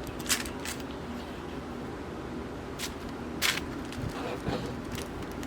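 Dried roses and stems being handled and arranged into a bouquet: a few short, crisp rustles and crackles over a faint steady hum.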